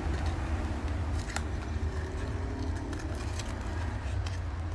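Small cardboard box of a piston ring set being torn open and handled, giving scattered crinkles and small clicks over a steady low background hum.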